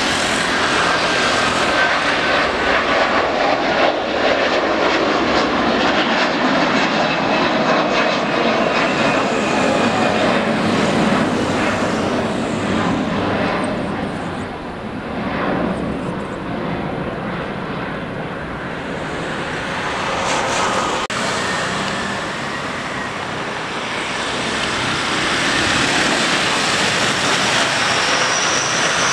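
Airbus A330's twin jet engines at takeoff thrust as the airliner lifts off and climbs away: a dense, steady rushing noise with a faint falling whine early on. The noise dips about halfway through and builds again toward the end.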